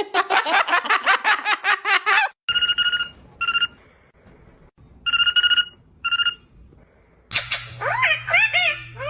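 Parrot vocalising: a quick run of repeated chattering notes, then two double-ring bursts in imitation of a telephone ringing. Near the end come rising-and-falling whistles over a low hum.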